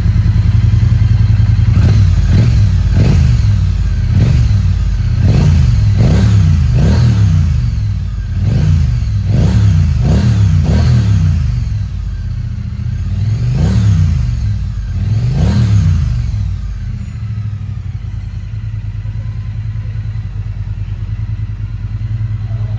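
2021 Triumph Bonneville T100's 900 cc parallel-twin engine running through Arrow Pro Racing slip-on silencers. It idles, takes about a dozen quick throttle blips over the first two-thirds, each revving up and dropping straight back, then settles to a steady idle.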